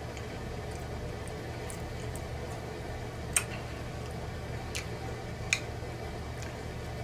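Three sharp, wet clicks from a cheese-covered double cheeseburger being squeezed and handled, over a steady low hum.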